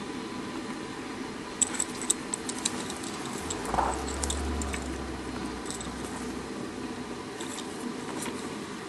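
Hand stitch repair of a leather baseball glove: scattered light clicks and small metallic ticks as a metal lacing needle and lace are worked through the leather, over a steady low room hum.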